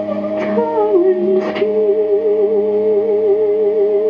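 Experimental noise music: steady electronic drone tones under a voice sung close into a handheld microphone, which holds a wavering note with a fast vibrato from about a second and a half in. Two short noisy hits come early, about a second apart.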